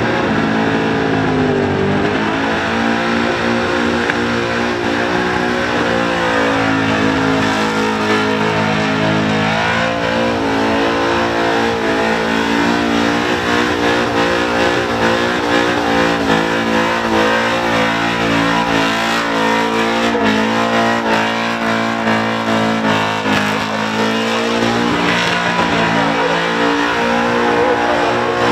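Supercharged engine of a VK Holden Commodore held at high revs in a burnout, the rear tyres spinning and smoking on the pad. It runs loud and steady, with small wavers and brief dips in revs.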